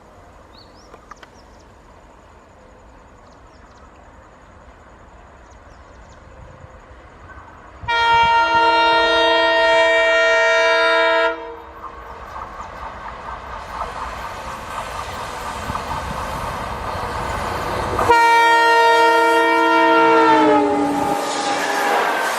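Twin WDG3A ALCO diesel locomotives approaching at speed, their engine noise growing steadily louder. The multi-tone horn sounds twice in long blasts, one of about three seconds and another of about two and a half seconds, and the second drops in pitch as the locomotives pass. The clatter of the passing train follows near the end.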